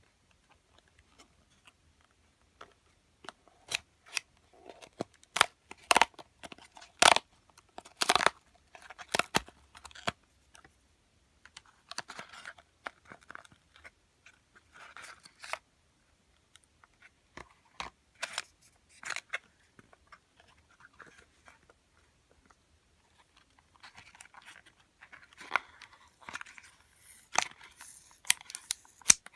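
Toy packaging being handled and opened by hand: scattered sharp clicks and snaps with bouts of tearing and rustling, the sharpest snaps in the first third and busier rustling near the end.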